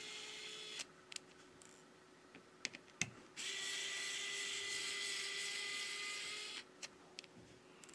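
Small electric precision screwdriver running with a steady whine as it backs out a phone's mid-frame screws. It stops about a second in and runs again for about three seconds in the middle, with light clicks of the tool and screws in the pauses.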